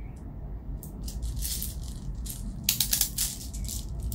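Airsoft BBs clicking and rattling as they are pushed by hand into a tight gas-blowback pistol magazine, in several short irregular bursts of clicks.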